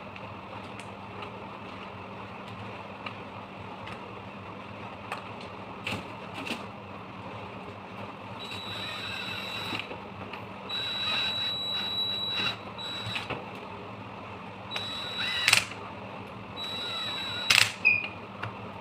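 Cordless drill motor run in four short bursts from about eight seconds in, each a second or two of steady high whine, with clicks and knocks of handling in between. A low steady hum sits underneath.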